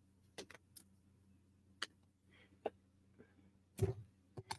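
Scattered light clicks and taps of small wooden puzzle-box pieces being handled and set down, with the loudest cluster a little before the end.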